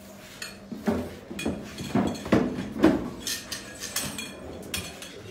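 Irregular sharp knocks and clinks of hand tools and fittings while a toilet pan is being fitted, the loudest ones in the first three seconds and lighter clinks after.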